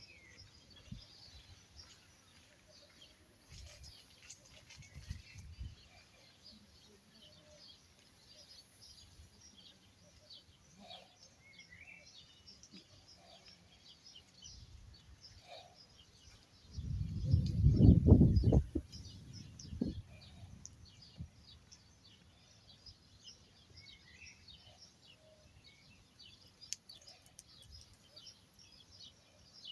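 Small birds chirping in short, scattered calls over a faint outdoor background. A little past the middle, a loud low rumble lasts about two seconds and is the loudest sound.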